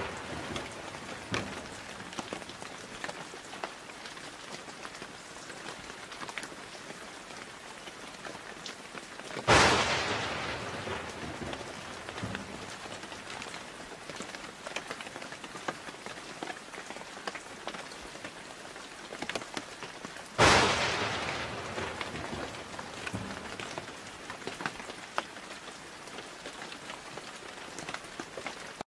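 Steady rain with two claps of thunder, one about ten seconds in and one about twenty seconds in, each starting sharply and fading away over a few seconds.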